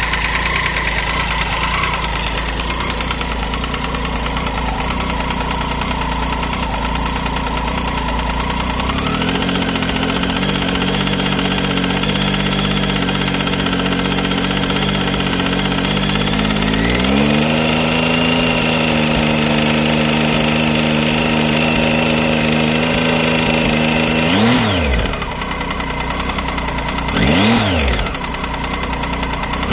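Triumph Tiger 800 XC's three-cylinder engine running with a ticking sound from the engine. The engine speed steps up about nine seconds in and again around seventeen seconds and holds higher, then the throttle is blipped three times near the end, each rev rising and falling quickly.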